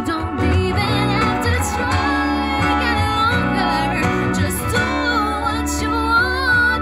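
A woman singing a slow, held melody over a small live band of keyboard, acoustic guitar and electric bass guitar.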